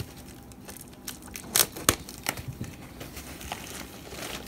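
Plastic shipping bag rustling and crinkling as it is handled, with a few sharp crackles about one and a half to two seconds in.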